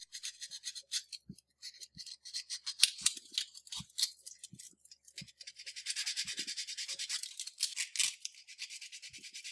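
Sandpaper rubbed back and forth over a plastic miniature part, a run of short, scratchy strokes that come closer together in the second half: smoothing the surface where mould lines were scraped off.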